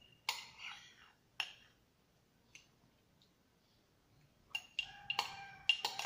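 Metal spoon clinking and scraping against a ceramic mug while scooping ice cream. There are a few sharp, ringing clinks in the first seconds and a quick run of them near the end.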